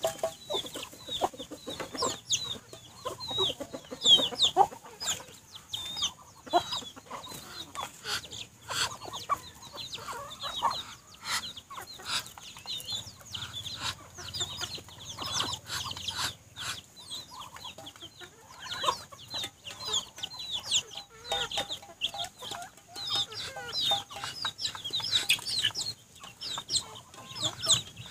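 Chicks peeping continuously in rapid high chirps, mixed with low clucking from the adult hen and rooster and scattered sharp taps of beaks pecking in the feed bowl.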